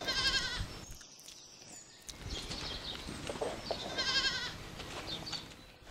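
Goats bleating: two short, quavering calls, one at the very start and another about four seconds in, with fainter scattered farmyard sounds between them.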